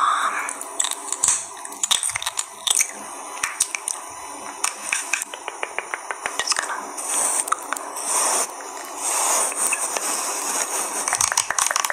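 Quick crisp clicks and taps, irregular and closely spaced, mixed with soft crunching, squishy sounds, as in an ASMR sound track.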